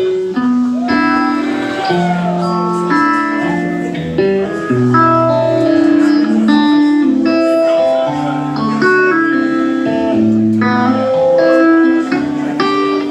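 Live country band playing an instrumental break, with a guitar carrying the melody in notes that bend and slide up and back down.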